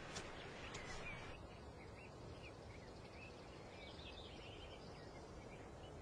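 Faint outdoor ambience with small birds chirping and twittering here and there, in a brief flurry about four seconds in.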